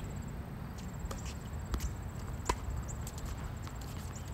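Tennis ball being hit with rackets and bouncing on a hard court during a rally: sharp pops at irregular intervals, the loudest about two and a half seconds in.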